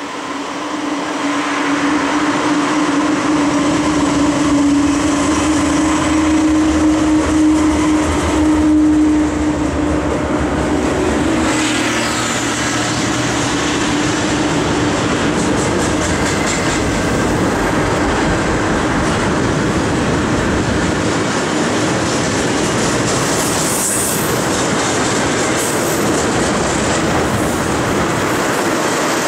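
Two GE diesel locomotives, a Dash 9-44CW and a Dash 8-40CW, passing close by with their engines running, a steady tone over a low rumble that builds and then fades after about ten seconds. Then the steady rumble and clickety-clack of double-stack container well cars rolling past.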